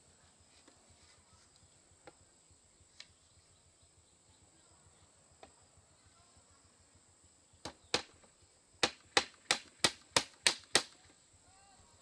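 A hammer knocking a nail into a bamboo fence crossbar where it meets the post: two starting taps about eight seconds in, then seven sharp, even blows, about three a second, with a few faint knocks before them.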